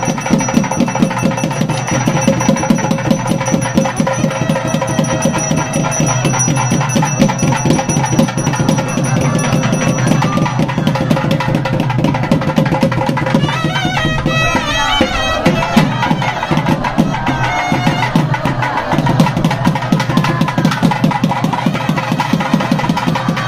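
South Indian temple music of nadaswaram and thavil: a double-reed pipe holding and bending notes over fast, continuous drumming, with a run of quick bending notes about fourteen seconds in.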